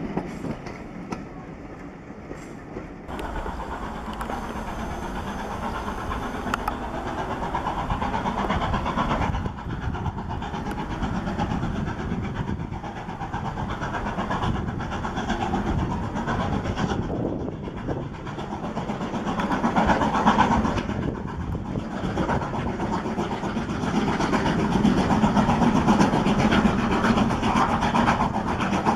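BR Standard Class 4MT 2-6-0 steam locomotive 76079 working a train, its exhaust and the running of the train heard together. The sound changes abruptly about three seconds in and swells louder twice in the second half.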